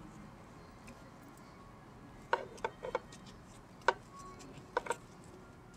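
A few light clicks and taps from hands working a paracord bracelet on a wrist. There are about six, in a small cluster a little over two seconds in, then single ones near four and near five seconds.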